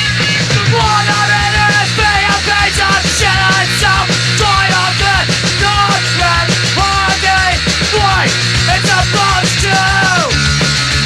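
Loud punk-rock band music: driving drums and bass under a lead melody whose notes bend and slide down at their ends.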